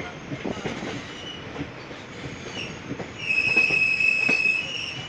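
Passenger train running, with wheels knocking over rail joints. From about three seconds in, a loud, steady, high-pitched wheel squeal takes over, typical of wheel flanges rubbing the rail on a curve.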